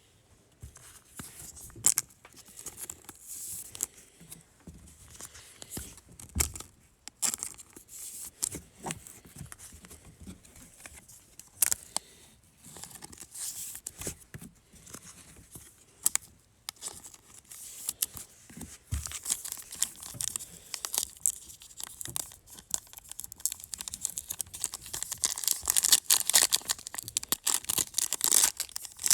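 Trading-card pack wrappers being torn open and crinkled by hand as the packs are opened. There are many sharp crackles, getting thicker and louder over the last several seconds.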